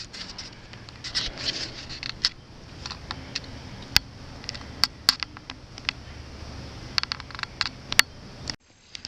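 Handling noise of a camera held in the hand: scattered sharp clicks and rubbing over a steady rush of fast river current. The sound cuts off suddenly near the end.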